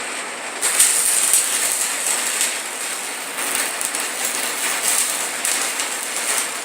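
Stick welder arc (shielded metal arc welding with Lincoln Electric rods) crackling and sizzling steadily as the rod is run along the joint, the arc being held rather than sticking. It gets louder about a second in.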